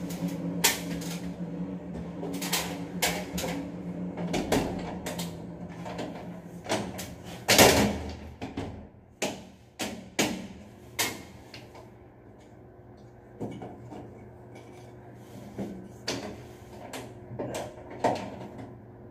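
Metal louvered reflector cover of an elevator ceiling light being handled and fitted back into place: irregular metallic clicks and knocks, closer together in the first half, the loudest about seven and a half seconds in. A steady low hum runs underneath.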